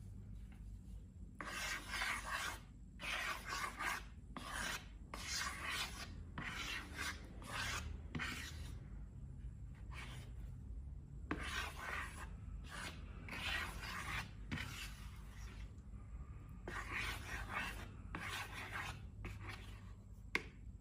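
Slime being worked by hand, a run of crackly rubbing and squishing strokes, each lasting up to a second or so, with short pauses between them.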